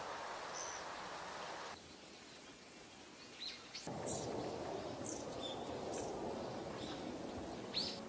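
Short, thin, high single call notes from a small songbird, about one a second and loudest near the end, over a steady outdoor hiss. From about four seconds in they are the calls of a male Daurian redstart.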